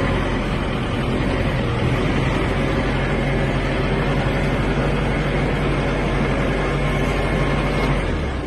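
Steady vehicle engine rumble with broad noise over it, continuous and unchanging, that breaks off abruptly just before the end.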